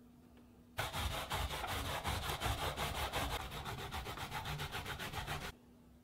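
Zucchini grated by hand on a stainless-steel grater: fast, even back-and-forth strokes, about seven a second. They start about a second in and stop suddenly near the end.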